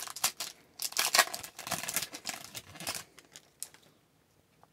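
Wrapper of an Upper Deck hockey card pack crinkling and tearing open as the pack is opened and handled, a quick run of crackles for about three seconds, then a few faint ticks.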